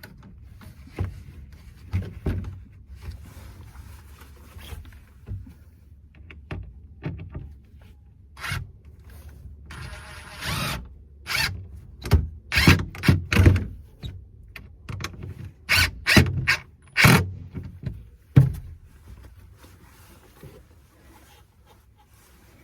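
Hands-on construction work on house skirting: irregular knocks, thuds and scrapes of tools and building materials being handled, with a brief rasping scrape about ten seconds in and a run of sharp, louder knocks after it.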